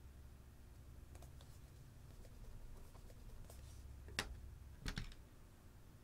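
Light plastic clicks from hands handling plastic: a few faint ticks, one sharp click about four seconds in, then a short cluster of clicks about a second later, over a low steady hum.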